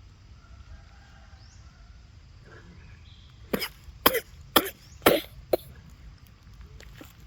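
Five short, harsh coughs in quick succession, a little over three seconds in.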